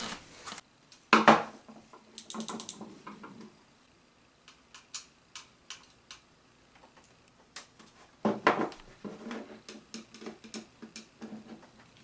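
3D printer kit parts being handled and fitted together by hand: a sharp knock about a second in, a quick run of about five clicks, then scattered light ticks and a short clatter near the end.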